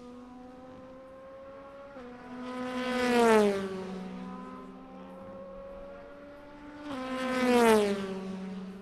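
Two racing cars at full throttle passing the trackside microphone one after the other, about 3 and 8 seconds in. Each engine note climbs as it approaches, drops once with an upshift, then slides down in pitch as the car goes by.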